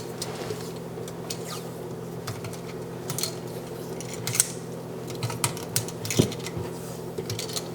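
Scattered small clicks and taps of hands handling a GFCI receptacle and electrical tape, over a steady low hum.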